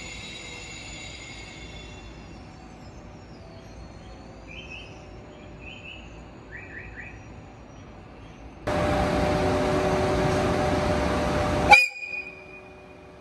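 A train horn sounding once for about three seconds, starting suddenly and cutting off sharply, after several seconds of faint high chirps.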